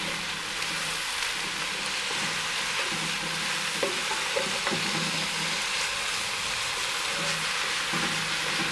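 Mushrooms, onions and diced bacon frying with a steady sizzle in a cast-iron Dutch oven, stirred with a wooden spatula.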